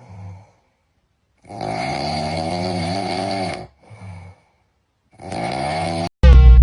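Cat-meme sound clip: a wavering, groan-like cry heard three times, the middle one drawn out for about two seconds. Loud music cuts in suddenly near the end.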